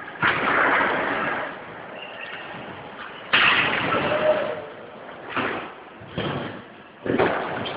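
Skateboards at a skatepark: five sharp impacts as boards land and slap on the ramps, each followed by a short rolling rumble of the wheels. The first two are the longest and loudest.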